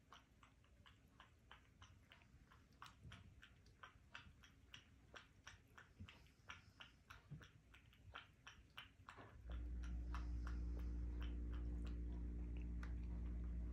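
An 18-year-old Siamese cat with kidney disease lapping water from a glass, faint wet clicks at about three to four laps a second. About nine and a half seconds in, a much louder steady low hum starts suddenly and runs on under the lapping.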